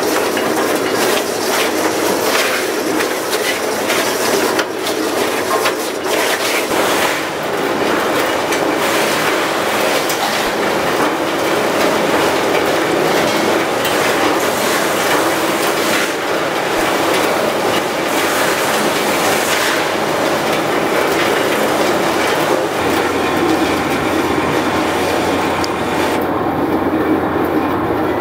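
Tyre-processing machinery running with a loud, continuous rattling clatter; near the end the hissy top of the sound drops away.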